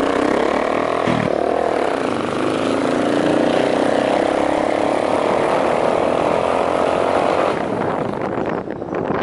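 Motorcycle engine running as the bike rides along a street, heard from the pillion seat. The engine note shifts about a second in, then eases and drops near the end.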